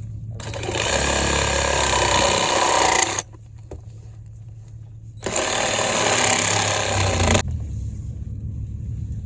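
A power tool run in two bursts, about three seconds and then two seconds long with a pause between, over the steady low hum of an idling engine.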